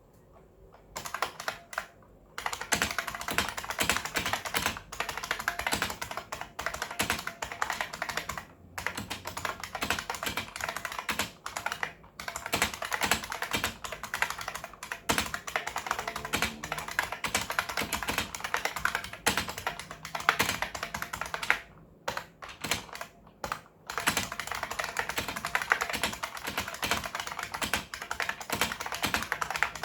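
IBM Model M (51G8572) buckling-spring keyboard being typed on fast, a dense clatter of crisp key clicks in long runs broken by a few short pauses.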